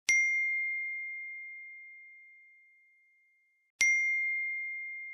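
A high, clear bell-like chime struck twice, the second strike nearly four seconds after the first. Each strike rings on one pure tone and fades away slowly.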